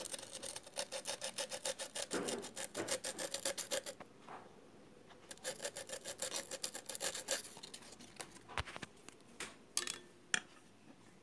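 Sandpaper rubbed quickly back and forth on a metal part of a flatlock sewing machine: a rapid run of scraping strokes that pauses about four seconds in, starts again for about two seconds, then gives way to a few scattered clicks near the end.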